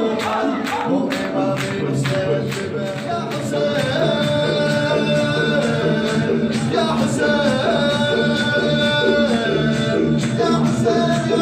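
A male radood chanting a Shia latmiyya lament, with long held notes over a steady rhythmic beat of sharp strikes that is most marked in the first few seconds.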